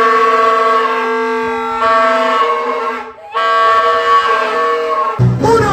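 Several plastic vuvuzela-style toy trumpets blown together, holding steady blaring notes at different pitches in two long blasts with a short break about three seconds in. Near the end it cuts to music.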